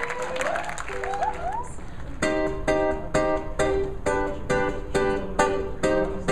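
Strummed acoustic chords begin about two seconds in, with quick even strokes a little over two a second: the instrumental lead-in to a song. A brief voice is heard just before the strumming.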